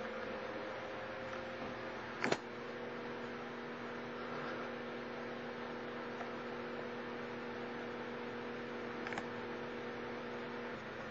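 Steady electrical hum over an even hiss, broken by two short clicks, one about two seconds in and one near the end. The lower hum tone stops shortly before the end.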